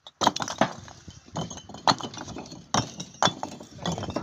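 Fired clay bricks knocking and clinking against one another as they are tossed and stacked by hand: a string of sharp, irregular clacks, one every half second or so.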